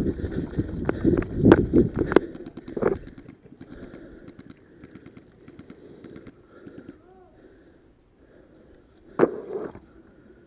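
Rustling and knocking from a player moving through long grass carrying an airsoft rifle, with sharp clicks from the gear. It is loudest for the first three seconds, then quieter with scattered clicks and one more knock near the end.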